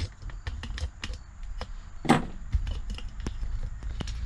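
Hand tools and loose metal parts clicking and knocking irregularly while parts are taken off a car, with one louder clank about two seconds in.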